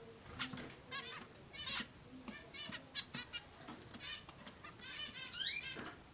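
Zebra finches calling: a string of short, repeated chirps at irregular intervals, with a longer sweeping call about five and a half seconds in.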